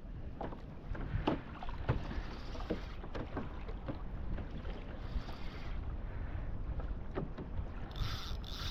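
Wind buffeting the microphone over a low rumble of open water, with scattered light clicks and knocks. Near the end come two short high buzzes.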